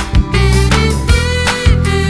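Background music with a beat: pitched instruments over regular drum hits.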